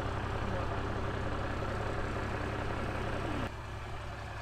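A vehicle engine idling: a steady low rumble that drops slightly in level about three and a half seconds in.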